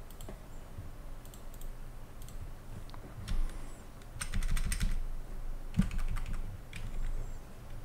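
Computer keyboard typing: scattered keystrokes, with a quick run of key presses a little past the middle.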